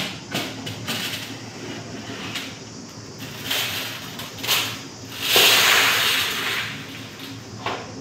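Metal tray and cabinet door handled with a few sharp clicks and knocks, then a longer dry rustling hiss about five seconds in as dry strands are tipped off a metal tray into a plastic bowl.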